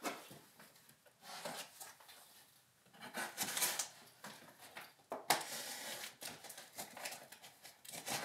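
Knife cutting through packing tape on a cardboard parcel, with scraping and rubbing of the cardboard in irregular scratchy bursts and a sharp knock about five seconds in.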